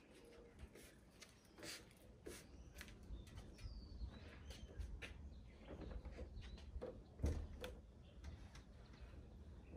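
Faint footsteps and scattered light knocks as a car hood is lifted out of a pickup bed and carried over, the loudest knock about seven seconds in, with birds chirping now and then over a low outdoor rumble.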